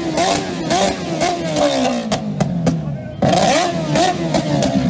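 Motorcycle engine revved hard again and again, its pitch rising and falling in quick blips, with sharp cracks and bangs from the exhaust as it backfires flames. The revs fall away and dip about three seconds in, then a sudden loud burst follows.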